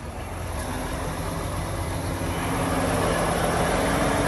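A heavy goods lorry's diesel engine running as the lorry is reversed slowly into a parking space. Its drone grows steadily louder and rises slightly in pitch partway through.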